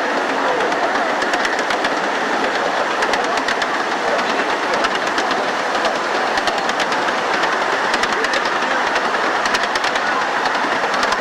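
Miniature ride-on railway car rolling along the track: a steady rumble of wheels on rail with scattered sharp clicks as the wheels pass over rail joints.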